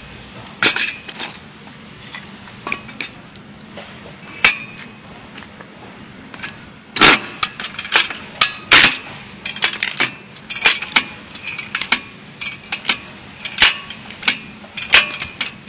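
Foot-operated manual log splitter splitting firewood: a string of sharp clacks and cracks as the steel lever and ram are stamped down and the wood splits, with pieces knocking onto concrete. The loudest cluster comes about seven to nine seconds in.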